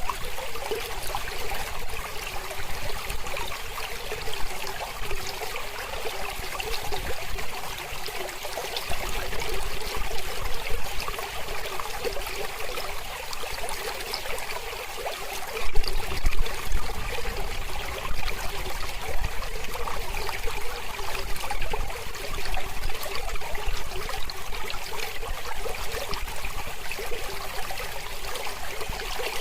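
Small mountain river flowing and trickling over stones, a steady rushing splash with a brief louder surge about halfway through.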